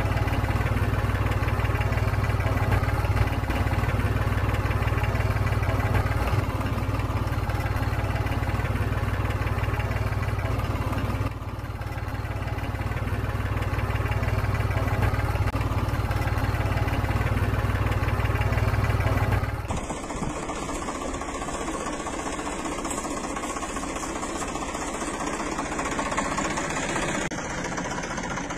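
Tractor engine idling with a steady deep chug. About two-thirds of the way through the sound changes abruptly to a thinner engine sound without the deep rumble.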